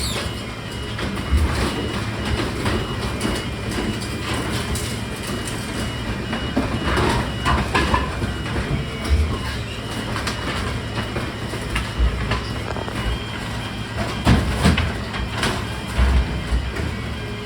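Garbage truck's engine and machinery running steadily, with repeated low thumps and clanks.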